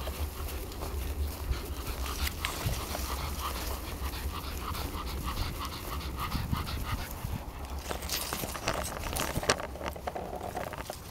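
A Cavalier King Charles Spaniel panting as it walks through tall grass, with grass blades rustling and brushing against the microphone. A steady low rumble of wind on the microphone runs underneath.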